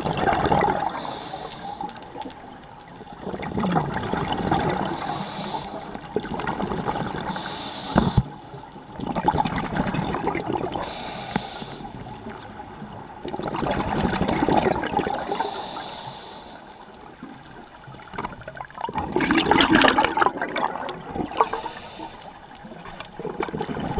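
Scuba diver breathing through a regulator underwater: exhaled bubbles gurgling out in bursts about every five seconds, with a short hiss of inhaled air between them. A single sharp knock about eight seconds in.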